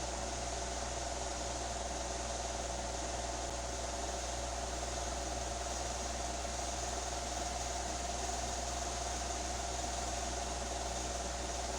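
Electric fan running steadily, its motor converted from bushings to ball bearings: a steady hum with a clear mid-pitched tone over the rush of air. The converted bearings have turned a little noisy after three months of use.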